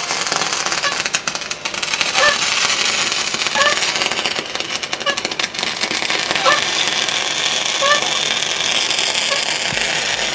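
MIG welding arc crackling and spattering steadily as an automated torch welds a piece onto a barrel's metal top sheet.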